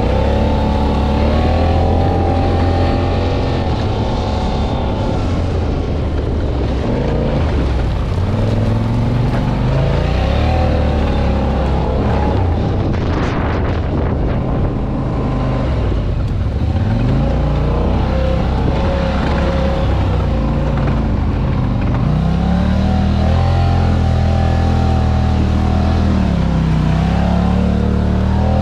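Off-road vehicle engine running under way, its pitch rising and falling as the throttle is opened and eased off again and again. A short rush of noise comes about halfway through.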